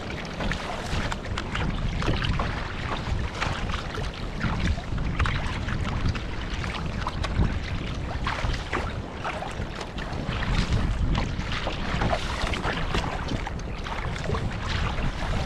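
Water slapping and splashing around a kayak in choppy lake waves, irregular sharp splashes over a steady wash, with wind buffeting the microphone.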